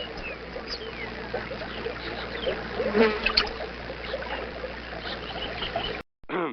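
Swamp ambience recording: water trickling under a steady chorus of insect and small-animal chirps and calls, cut off abruptly about six seconds in. A short sound with falling pitch begins just before the end.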